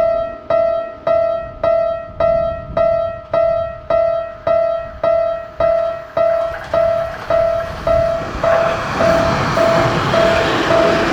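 Japanese level-crossing warning bell ringing steadily, a little under two dings a second. About eight seconds in, the rushing run of an approaching train rises under the bell.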